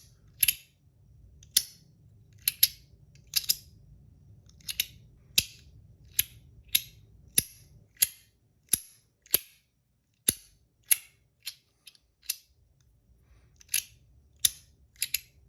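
Compoform Astronaut Coin, a slider fidget coin, being slid back and forth by hand: a run of sharp clicks, about one or two a second, that thins out for a few seconds about two thirds through before picking up again.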